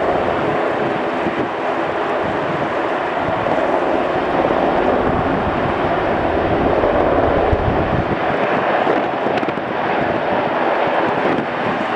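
Sikorsky S-92 helicopter hovering low and air-taxiing: a steady, loud mix of main-rotor chop and twin turboshaft engine whine, with some wind noise on the microphone.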